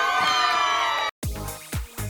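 Several people shouting and cheering excitedly, cut off suddenly about a second in; then electronic dance music starts with a steady kick-drum beat.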